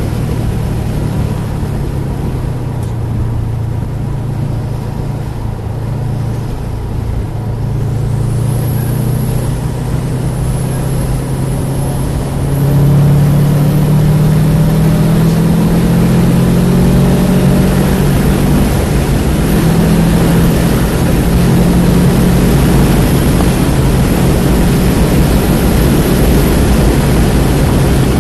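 Car engine heard from inside the cabin at speed, running steadily through the corners. About twelve seconds in it goes to full throttle and rises in pitch as the car accelerates hard, with one upshift a few seconds later before it climbs again.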